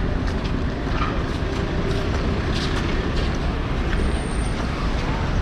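Busy city street ambience: a steady low rumble of traffic with faint scattered voices and occasional short clicks.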